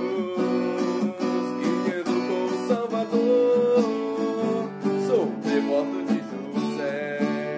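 Steel-string acoustic guitar strummed in a steady chord rhythm, accompanying a song.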